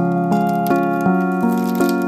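Soft, gentle background music: plucked, piano-like notes changing every few tenths of a second.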